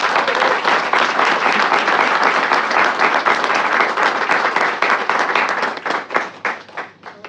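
Audience applauding in a dense, steady burst of clapping that thins to a few scattered claps and stops near the end.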